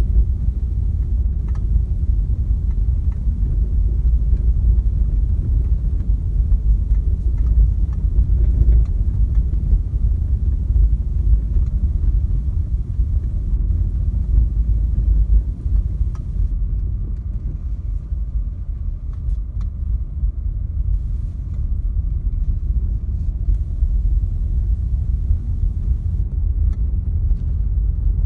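Renault Clio IV 1.5 dCi diesel car driving, heard from inside the cabin: a steady low rumble of engine and tyres on the road, easing slightly about halfway through.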